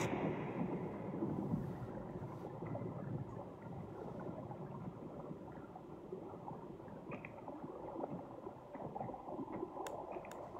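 Flowing stream heard as if from underwater: a muffled, steady low rush of water with soft gurgles and small bubble pops. There are a few faint clicks near the end.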